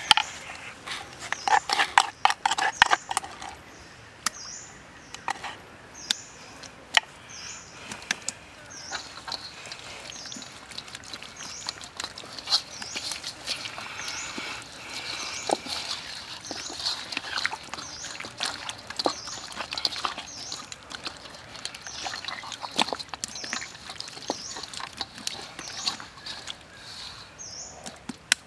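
Wet slapping and squelching of hands rubbing a chili and herb paste into the skin of a raw whole duck in a metal wok, with many short taps and clicks. A short high chirp repeats about once a second behind it.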